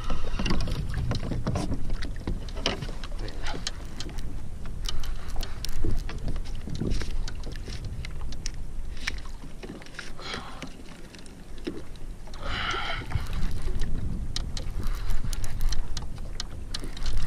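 Wind buffeting the microphone and water lapping against a kayak's plastic hull, with scattered small clicks and knocks. There are two short splashy hisses about ten and thirteen seconds in.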